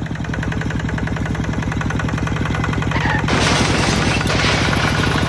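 A small engine running with a fast, even putter. A hissing noise joins about three seconds in and fades out a second or so later.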